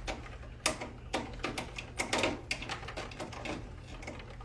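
Irregular light clicks and knocks, two or three a second, from hands and tools working on a vending machine, over a steady low hum.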